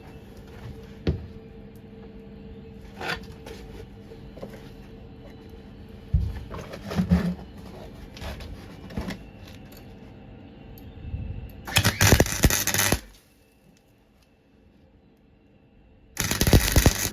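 MIG welder tack-welding a steel floor repair panel: two loud crackling bursts of the arc, each about a second long, one about two-thirds of the way in and one at the end. Before them come a few knocks and clatters of handling over a steady hum.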